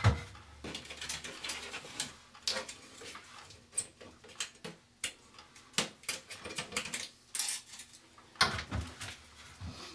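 Plastic grille of an old bathroom ceiling exhaust fan being pulled down off the fan housing and its metal clips: irregular clicks, rattles and scrapes of plastic against metal.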